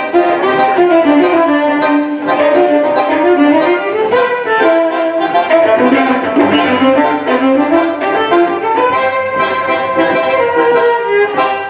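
A bandoneon and a cello playing a new-tango piece together, live, with melodic lines that step up and down.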